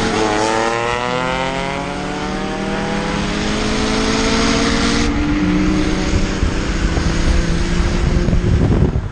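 Car engine at full throttle, pulling hard from a roll, its pitch climbing steadily as the car accelerates, heard from inside the cabin. About five seconds in the pitch drops back, and then it climbs slowly again.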